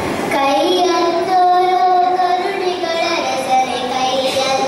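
A young girl singing solo into a microphone, holding long, steady notes.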